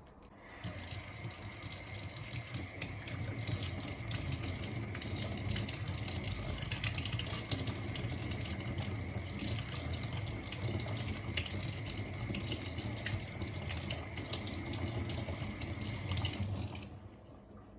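Water running steadily from a tap for about sixteen seconds with a faint steady whistle, then shut off suddenly.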